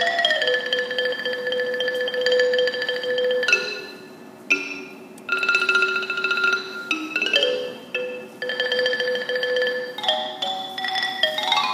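Thai ranat ek xylophone played solo, holding long notes as rapid tremolo rolls, with a couple of brief pauses, then quick runs of stepping notes near the end.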